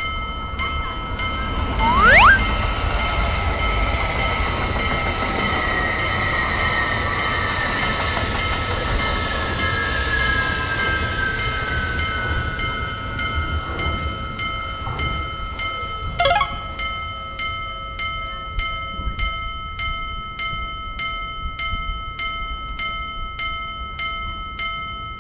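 Japanese railroad crossing warning bell ringing at an even two to three strikes a second while a train passes with a rushing rumble. A short rising whistle comes about two seconds in, and a tone slowly falls in pitch as the train goes by.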